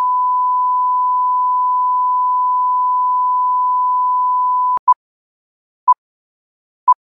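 Steady high-pitched test tone of the kind played under TV colour bars, cutting off suddenly just under five seconds in. Then come short film-leader countdown beeps at the same pitch, one a second, three of them.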